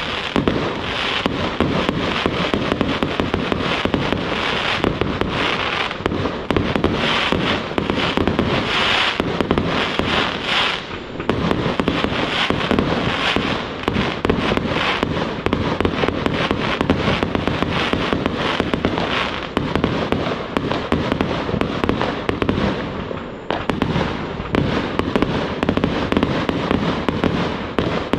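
Aerial fireworks going off in a continuous barrage: rapid, dense bangs of bursting shells mixed with crackling, with hardly a gap.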